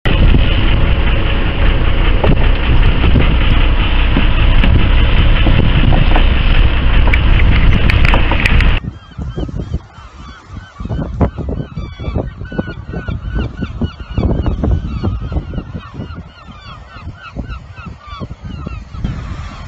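A loud, steady rushing noise that cuts off suddenly about nine seconds in, giving way to a flock of gulls calling over and over, many short cries overlapping.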